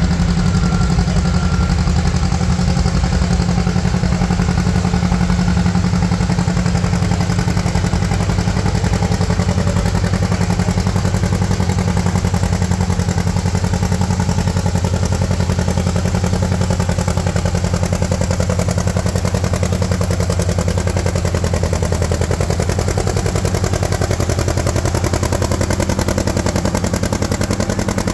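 Vintage John Deere two-cylinder tractor engine running steadily at low speed, a fast, even pulsing beat that holds without big revs.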